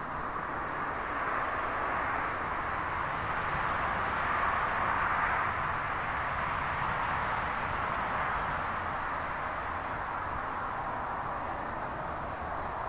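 Approaching diesel-hauled train, the Class 37 locomotive's English Electric V12 diesel propelling from the rear of the rake. A steady running noise swells as it nears, and a thin high steady tone joins about halfway through.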